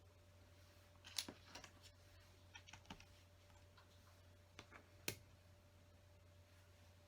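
Plastic LEGO bricks clicking and tapping as small pieces are picked up and pressed onto a build: a handful of separate sharp clicks with pauses between, over a faint steady hum.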